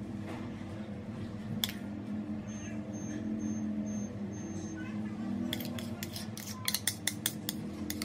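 Metal spoon clinking and scraping against a ceramic bowl while thick whipped egg cream is spooned into a glass: one click about a second and a half in, then a quick run of clicks over the last couple of seconds, over a steady low hum.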